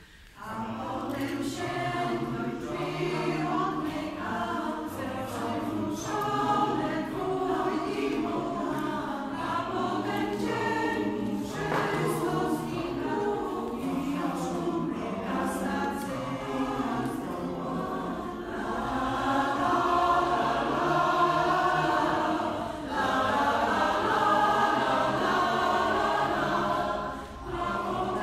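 Mixed choir of women's and men's voices singing a cappella. The choir comes in together just after a short pause at the start, with brief breath breaks between phrases later on.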